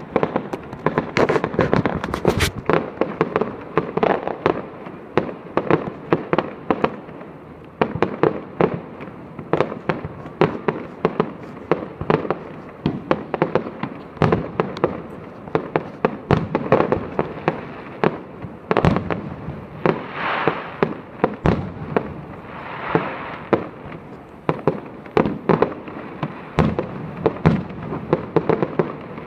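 Fireworks display: a continuous barrage of bangs and booms from aerial shells, several a second, with stretches of hissing crackle about twenty and twenty-three seconds in.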